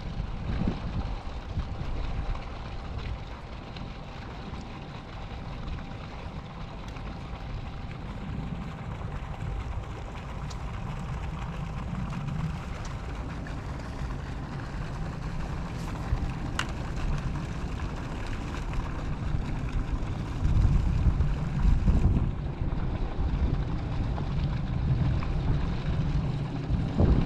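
Outdoor ambience: wind buffeting the microphone as an uneven low rumble, gusting harder about twenty seconds in and again near the end, over a faint steady background hiss.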